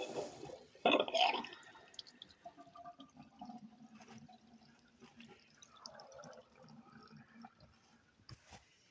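Water running through plumbing: a loud rush in the first second and a half, settling into a quieter hiss with a faint steady hum and a thin whine.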